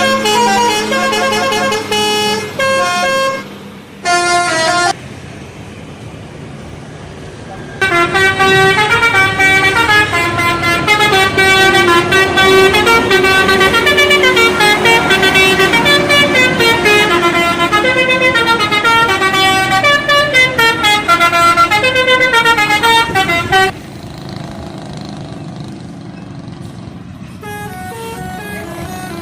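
Indonesian bus 'telolet' horns, multi-tone air horns playing quick stepped melodies. They come in several bursts: a short one at the start, a brief one about four seconds in, and a long loud run of about fifteen seconds in the middle. Fainter horn tunes follow near the end, with quieter stretches between the bursts.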